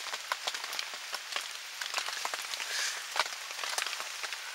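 Rain falling on a tent, heard from inside: a steady hiss of drops with many small, irregular taps on the fabric.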